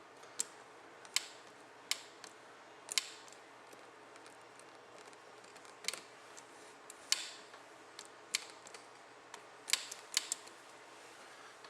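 About a dozen sharp, irregularly spaced clicks and taps from hands working the throttle grip and cable adjusters on a Harley-Davidson's handlebar, while the throttle cable free play is set.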